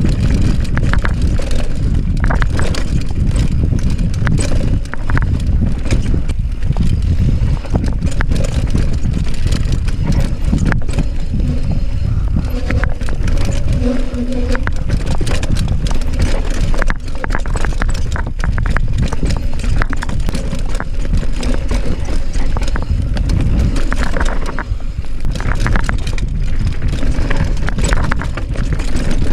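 Mountain bike riding down a rough trail: a steady wind rush on the microphone with constant rattles and knocks from the bike over the ground.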